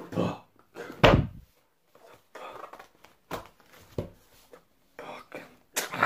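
A single heavy thud from a large hardcover book about a second in, followed by scattered indistinct speech.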